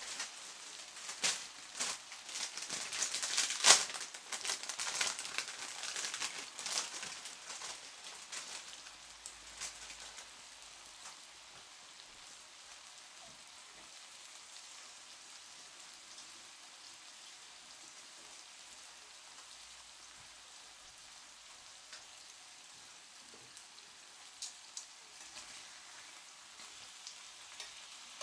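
Marinated pork belly slices frying in a skillet, the fat crackling and popping busily for the first several seconds, then settling to a quieter, steady sizzle with an occasional pop.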